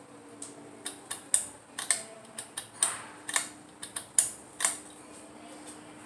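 Ceiling fan pull-chain switch and chain clicking sharply about a dozen times over four seconds as the chain is pulled, with a faint steady motor hum coming in about halfway as the fan starts turning.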